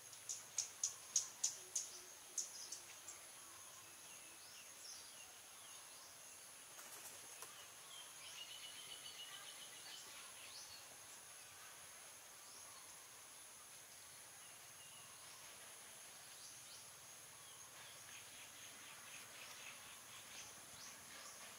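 Outdoor insect chorus: a steady, high-pitched buzz that runs on throughout. Over it, a quick run of sharp, high chirps in the first three seconds, and a few faint bird calls around the middle.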